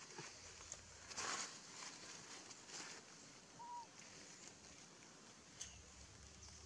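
Quiet outdoor ambience with a few soft rustling scuffs, the loudest about a second in, and one brief rise-and-fall chirp a little past halfway.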